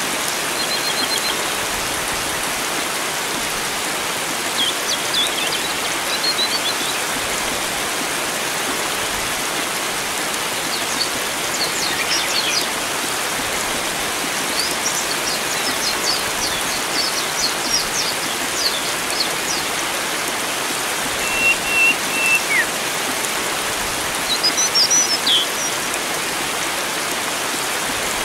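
Steady rush of flowing water, with wild songbirds calling over it on and off: brief high chirps and twitters, a run of quick notes in the middle, a short held whistle that drops off, and a louder burst of calls near the end.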